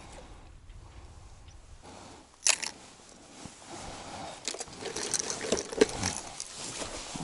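Plastic fishing tackle box being opened and handled: one sharp plastic click about two and a half seconds in, then a run of clicks and rattles as the fold-out trays are lifted and the hard lures clatter in their compartments.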